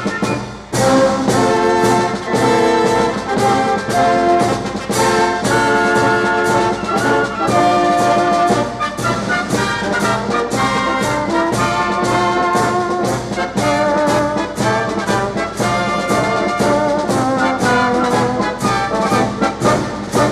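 Music led by brass instruments, with held notes over a steady, even beat.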